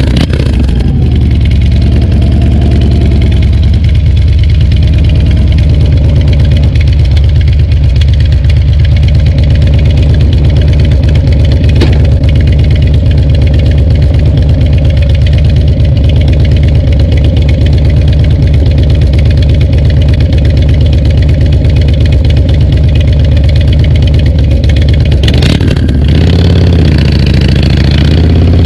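Harley-Davidson Dyna Street Bob's V-twin running through a FAB28 aftermarket exhaust while riding at a steady pace, with the revs dipping and rising again near the end.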